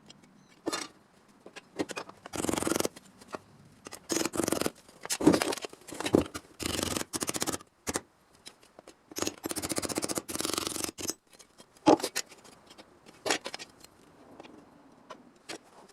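Sheet steel being cut for a car body repair panel, in about half a dozen short runs of rapid crunching cuts with brief pauses between them.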